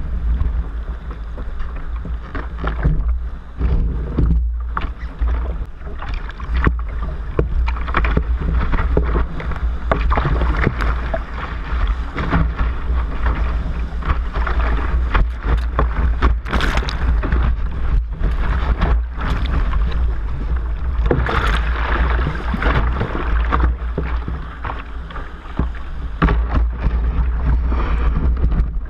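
Foaming surf rushing and splashing around a sea kayak's bow as it moves through whitewater among rocks, heard close from the deck. A steady low rumble runs underneath, with frequent sharp splashes.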